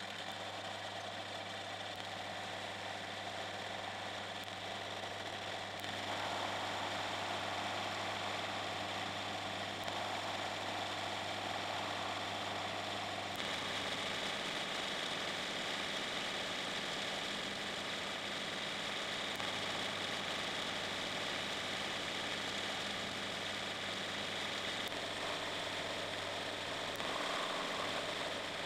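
Metal lathe running, spinning a steel rod that is being turned down by a cutting tool: a steady motor hum under a broad machining hiss. The sound steps up in level about six seconds in and again around thirteen seconds.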